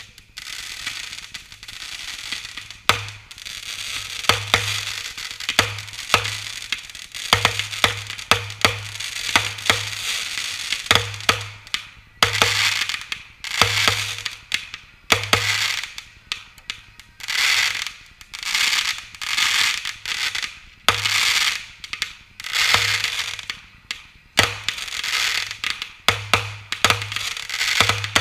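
Consumer fireworks going off in quick succession: repeated hissing whooshes of shots launching, with many sharp pops and crackles from the bursts overhead.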